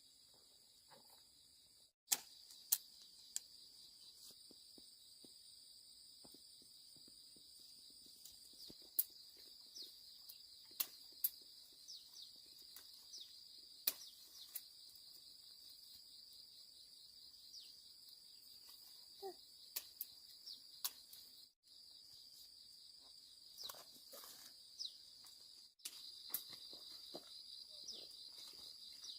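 Steady, high-pitched chorus of insects, with scattered sharp clicks and snaps.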